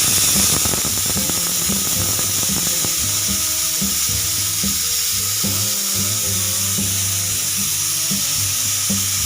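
Pressure cooker whistling: a loud, steady hiss of steam escaping past the weight valve, the sign that the cooker has reached pressure.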